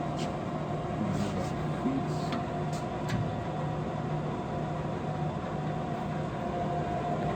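LeBlond Makino Regal Servoshift engine lathe running, a steady mechanical hum with constant pitch, with a few light clicks in the first three seconds.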